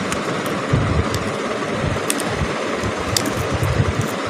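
Steady background rumble and hiss, with a few small clicks and rustles from fingers working the tape-covered video cable connector onto the back of a laptop LCD panel.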